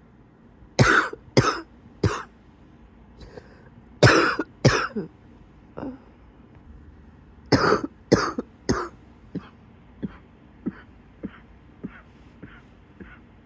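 Wheezy coughing in three hard bouts of three coughs each, then a run of fainter, shorter coughs about every half second that die away.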